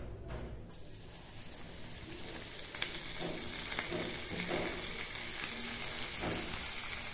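Semolina-coated pomfret shallow-frying in oil on a flat pan: the sizzle begins as the fish goes in and grows louder about three seconds in, with scattered crackles.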